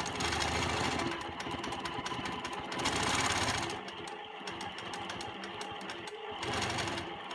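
Longarm quilting machine stitching free-motion: a rapid needle clatter that rises and falls as the head is guided by hand around a swirl. It is louder in the first few seconds and quieter from about halfway through.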